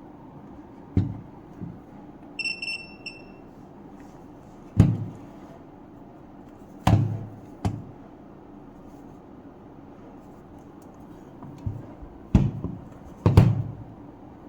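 A short electronic beep of just under a second about two and a half seconds in, among several sharp knocks and clicks of equipment being handled on a bench.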